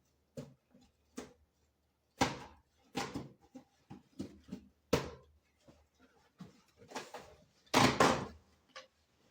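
Handling noises of a microphone kit's plastic parts and packaging: irregular clicks, taps and knocks with some rustling, the loudest a pair of knocks near the end.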